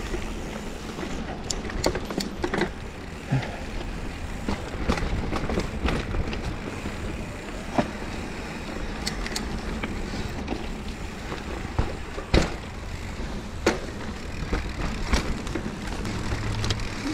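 Mountain bike being ridden along a forest trail: a steady rumble of tyres on the dirt surface, broken by frequent irregular sharp knocks and clatters from the bike jolting over bumps.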